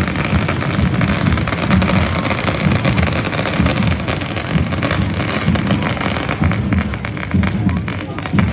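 Procession din of outdoor music and crowd noise, with a run of sharp firework crackles coming in during the second half.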